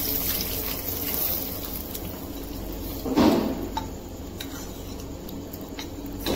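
Steel spoon stirring dal in a stainless steel bowl, clinking against the side several times, with one louder clunk about three seconds in.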